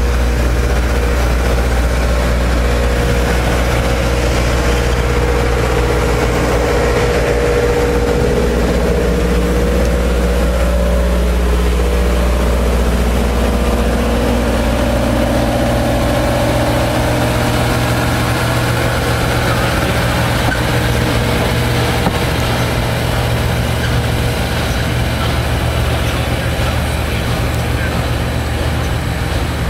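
Passenger train coaches rolling slowly past on curved track, over a loud, steady low mechanical hum.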